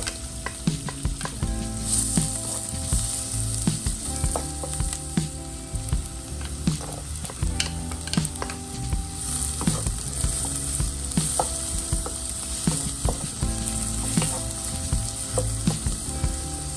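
Food frying and sizzling in a hot pan while being stirred, the spoon or spatula knocking and scraping against the pan many times.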